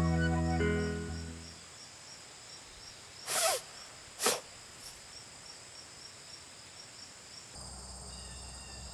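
Music fades out, then a man sneezes twice, about a second apart, the first longer than the second, over faint steady insect chirping.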